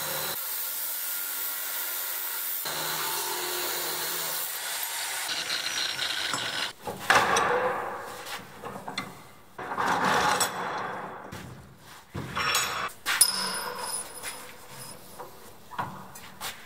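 AEG angle grinder with a cut-off disc cutting through steel clamped in a vise, a steady high hiss. About five seconds in the cutting stops and gives way to irregular bursts of scraping and knocking as the steel is worked at the vise, the sharpest about seven seconds in.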